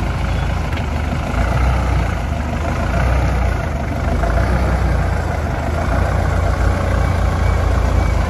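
Mahindra Thar's engine running steadily at low revs as the 4x4 crawls slowly through a deep rut on a dirt off-road trail.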